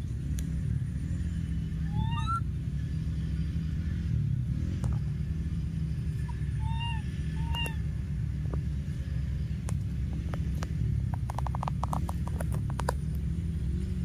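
Baby monkeys giving a few short squeaky calls, each rising then falling in pitch, about two seconds in and twice more near the middle, over a steady low rumble. A quick run of clicks comes near the end.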